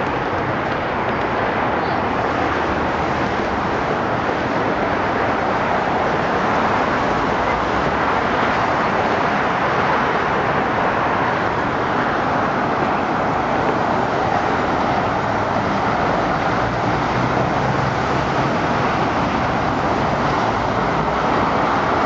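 Steady road traffic noise, an even rush of passing vehicles with no single event standing out.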